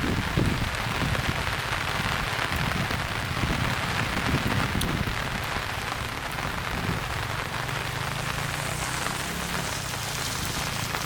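Steady rain falling on a street, an even hiss of many drops hitting the pavement, with a low rumble in the first few seconds.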